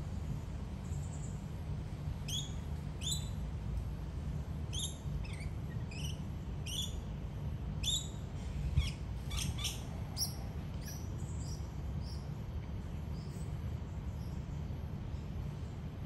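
Parrots feeding in a mango tree give a run of short, high, falling chirps in quick succession, thinning out after about ten seconds. A steady low rumble runs underneath, with one soft thump about nine seconds in.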